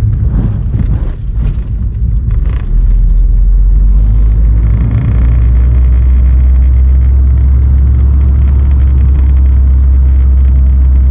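Car moving slowly, heard from inside the cabin: a steady low rumble that grows louder about three seconds in, with a few scrapes and knocks before that.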